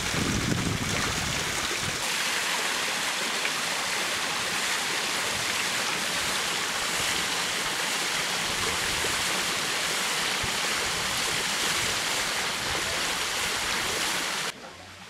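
Steady rush of water falling and splashing onto stone, like a small waterfall. It cuts off suddenly near the end.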